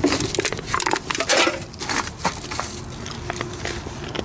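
Plastic garbage bags rustling and crinkling as gloved hands pull them open and dig through them, with scattered clicks and knocks of the bottles inside.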